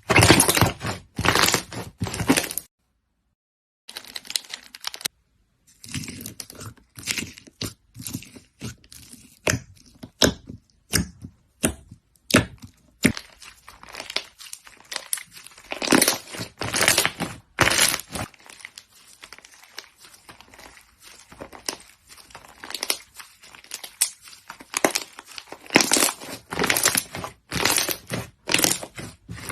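Hands squishing, poking and stretching slime, giving a fast, irregular run of wet crackles, pops and tearing sounds. The sound drops to dead silence for about a second a few seconds in, then picks up again.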